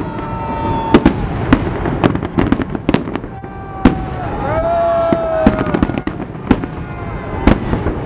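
Fireworks display: aerial shells bursting in a quick series of sharp bangs, about one or two a second, with steady crackling between them.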